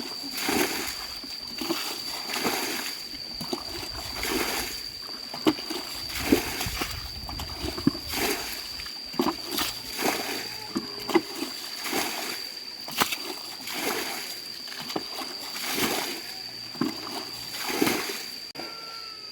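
Water splashing and sloshing over and over, roughly once or twice a second, with sharp clicks among the splashes and a steady high-pitched whine underneath.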